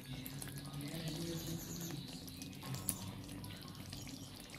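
Chicken rendang simmering gently in its gravy in a wok over a low flame: a quiet, steady, watery bubbling with small ticks.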